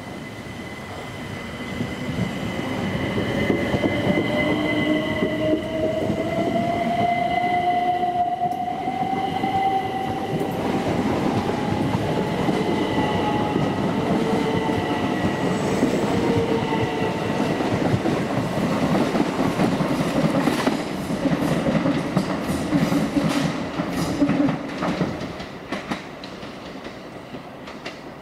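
Southeastern Class 375 Electrostar electric multiple unit running through the station. Its whine rises steadily in pitch over several seconds. Later comes a run of sharp wheel clicks over the rail joints, and then the sound dies away.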